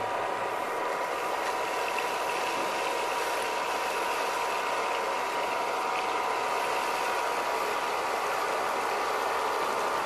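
Homemade vacuum cleaner running steadily: a small motor and fan with a constant whine and air rush, while its hose nozzle sucks up loose foam pellets.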